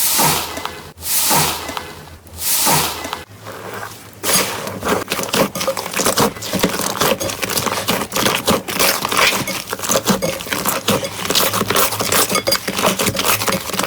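Slime being handled, with two or three soft squishing swells in the first few seconds, then a dense run of small crackling pops.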